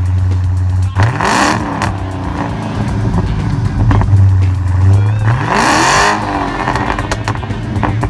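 Exhaust of a 2015 Dodge Challenger SRT 392's 6.4-litre Hemi V8 idling steadily, revved twice in short blips, about a second in and again about five seconds in, each rising and falling back to idle within about a second.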